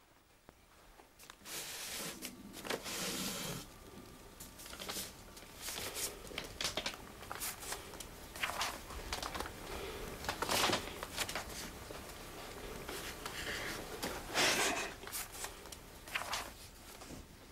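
Paper rustling as old books are handled and their pages leafed and turned, in a run of irregular swishes.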